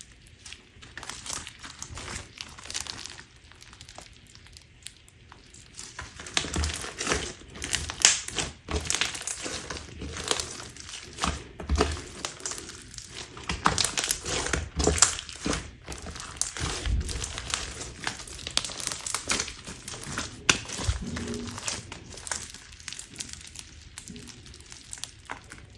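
Crunchy clear slime being squeezed and pressed by hand, giving many small crackles and pops. The crackling is sparse at first, turns dense and louder about six seconds in, and thins out again near the end.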